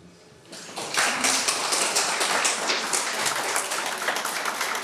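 Applause from a small crowd of seated guests, breaking out about a second in and going on steadily as many hands clap.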